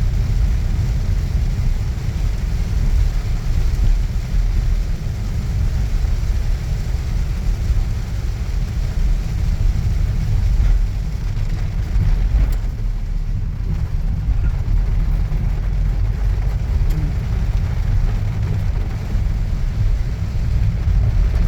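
Steady low rumble of a car's engine and tyres heard from inside the cabin while driving in heavy rain.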